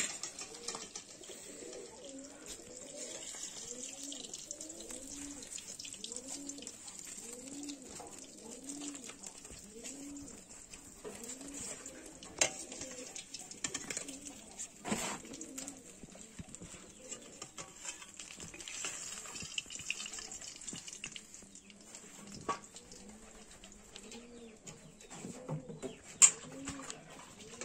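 Doves cooing over and over, about one coo a second. A few sharp knocks sound over it, the loudest near the end.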